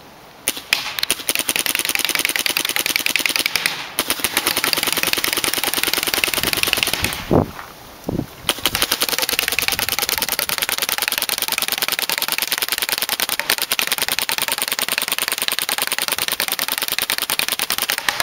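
Planet Eclipse Etha paintball marker firing long rapid strings of shots, its rate capped at 12.5 balls per second in semi mode. The strings break briefly about 4 s in and again for about a second around 7 to 8 s, where a brief louder sound is heard.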